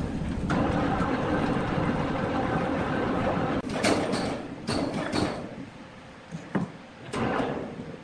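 Sawmill machinery running with a steady, dense rumble. From about halfway on it gives way to a run of sharp wooden knocks and clunks as heavy sawn timber slabs, hanging on a steel hoist cable, are shifted and set down.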